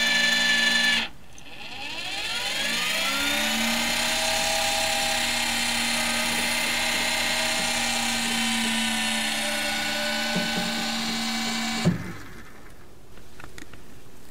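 Small brushed DC gearmotor whining: it cuts out about a second in, then starts again, rising in pitch over a couple of seconds, runs steadily for about eight seconds and stops with a single sharp knock.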